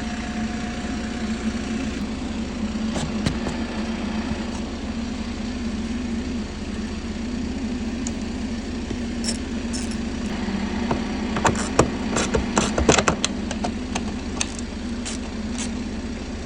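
Steady low mechanical hum, with a few sharp clicks a few seconds in and a quick run of clicks and knocks about two-thirds of the way through, from screws, a washer and plastic trim being handled and fitted.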